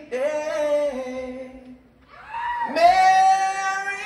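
A voice singing a slow ballad in long held notes, with little accompaniment heard. It breaks off briefly about two seconds in, then swoops up into the next sustained note.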